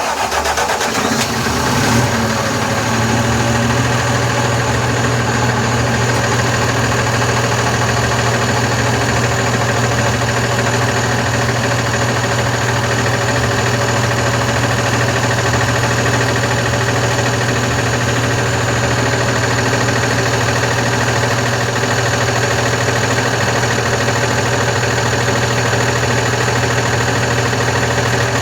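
Volkswagen Constellation 19.320 truck's diesel engine, freshly rebuilt with a new piston and honed cylinder, starting and settling within about two seconds into a steady idle, left unrevved.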